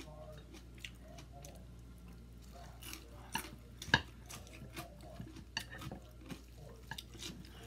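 Chopsticks clicking and scraping against a plate while picking up rice noodles and bean sprouts: a run of small, irregular taps with one sharper click about four seconds in.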